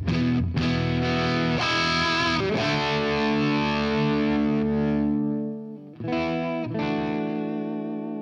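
Electric guitar chords through two early Peavey 5150 valve amps with 6L6 valves, set on the edge of distortion so the sound is mostly clean but slightly gritty, with the cleanness controlled from the guitar's volume knob. Several chords are struck and left to ring; one is held for a couple of seconds and stopped about six seconds in, then fresh chords follow.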